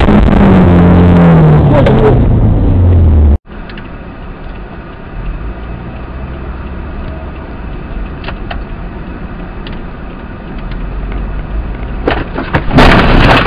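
Car dashcam audio. A loud engine note falls steadily in pitch for about three seconds and then cuts off sharply. Quieter steady in-cabin road and engine noise with a few clicks follows, and a loud noisy burst comes near the end.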